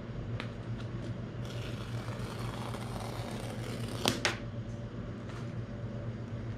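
Paper tear strip being ripped off the seal of a MacBook Air box: a rasping tear from about a second and a half in, ending in two sharp snaps about four seconds in as the strip comes free. A steady low hum runs underneath.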